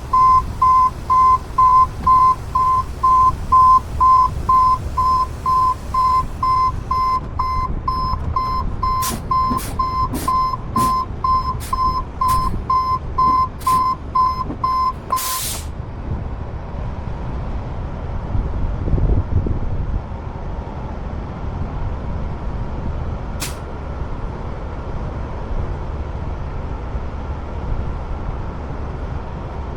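Truck backup alarm beeping steadily, about two beeps a second, over the low rumble of a heavy truck engine running. The beeping stops about halfway through, leaving only the engine, with one sharp click later on.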